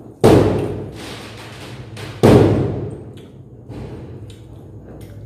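Two heavy thuds about two seconds apart, each dying away over about a second.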